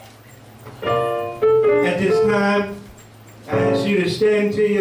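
Keyboard music playing held notes in phrases of one to two seconds, with a short quiet gap between them about halfway through.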